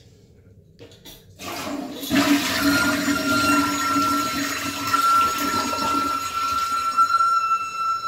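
Toilet flushing: water rushes in from about two seconds in, and soon after a steady, high, whistling squeak sets in as the tank refills. The owner puts the little squeaky noise down to the tank's fill valve.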